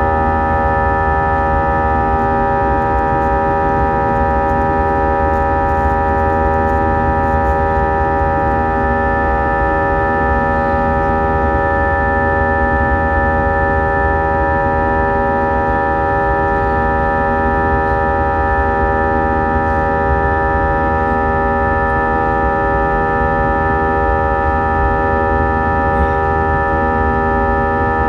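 Airbus A320 jet engines running steadily, heard inside the passenger cabin: a loud, even whine of several fixed tones over a low rumble, with no change in pitch.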